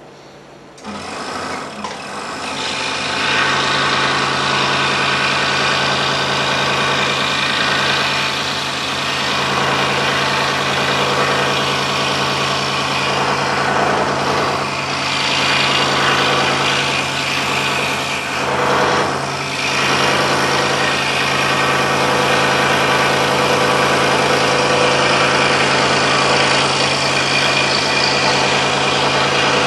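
Scroll saw starting up about a second in, then running steadily as its blade cuts through a thick block of wood held in a clamping jig.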